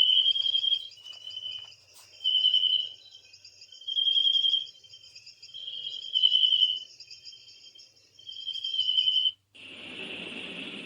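Recorded cricket chirping played by a star projector's built-in white-noise speaker, in short high trills repeating every second or two. About nine and a half seconds in, it switches to a steady rushing hiss, the next nature-sound track.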